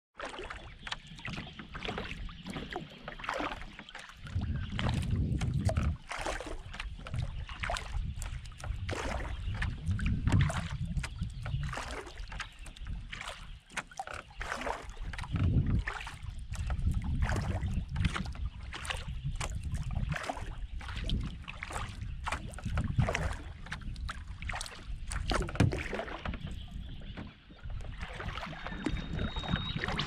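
Kayak paddle strokes dipping into and dripping off calm water beside the hull, a dense run of splashes and drips, with swells of low rumble from wind on the microphone.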